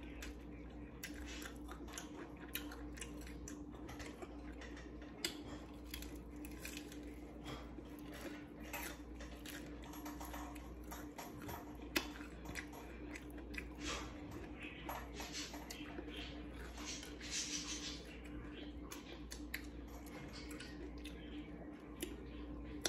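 A person chewing and biting into fried chicken close to the microphone: many short, irregular crunches and wet mouth clicks, over a faint steady hum.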